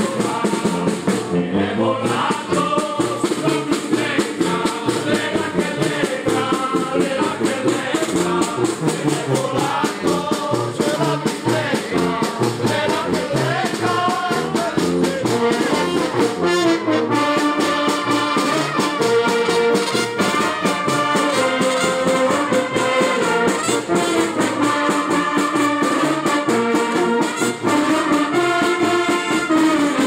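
Small street brass band playing a lively tune: trumpets, trombone, saxophone, clarinets and euphoniums together over a steady beat.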